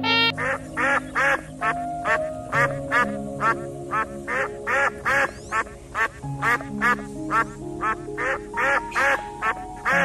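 Duck quacking over and over in short calls, about two or three a second, over background music with long held notes.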